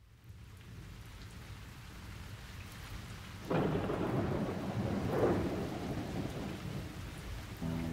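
Steady rain with thunder: a loud rumble about three and a half seconds in and a second one about five seconds in.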